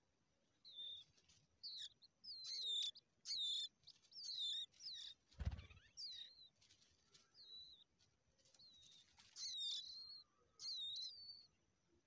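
Skylark chicks calling: a string of short, high chirps with a quick hook in pitch, about one or two a second, stopping shortly before the end. About five and a half seconds in there is a single dull thump, the loudest sound.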